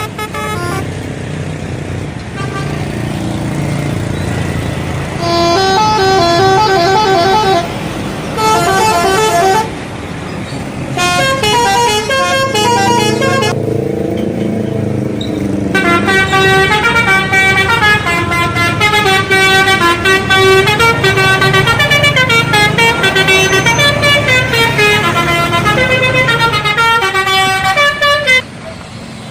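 Bus telolet horn, the multi-note musical horn of Indonesian coaches, playing quick melodic runs of stepping notes. There are several short bursts in the first half, then one long tune of about twelve seconds that cuts off suddenly near the end, over a low rumble.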